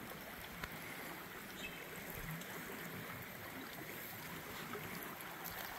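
Small rainforest creek babbling faintly, a steady even rush of water.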